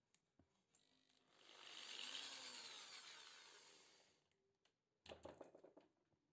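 A small power tool runs briefly, whirring up and then winding down over about three seconds. A short clatter of knocks follows near the end.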